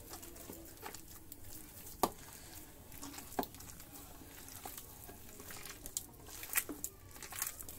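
Hands squeezing and mixing raw minced-mutton kabab mixture with egg in a plastic bowl: faint wet squishing with a few sharp clicks, the loudest about two seconds in.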